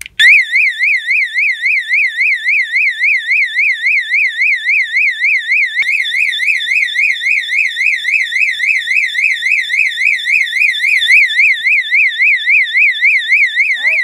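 Electronic fire alarm horn switched on, sounding a continuous high-pitched warble: one tone sweeping rapidly up and down. It starts abruptly just after the start and is very loud.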